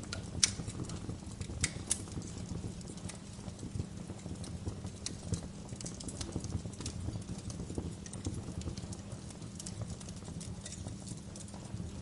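Wood fire burning in a fireplace: a steady low rumble of flames with irregular crackles and pops, the sharpest snap about half a second in.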